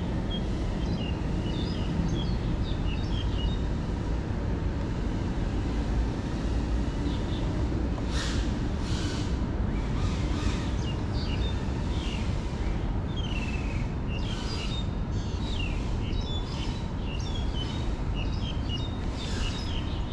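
Steady low outdoor rumble with birds chirping over it again and again, busier from about eight seconds in.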